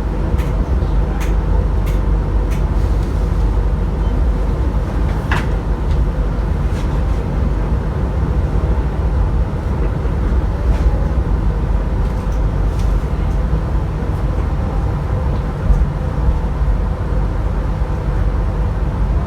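Steady rumble of a moving passenger train heard from inside an economy-class coach, wheels running on the track, with a few faint clicks and a brief squeal about five seconds in.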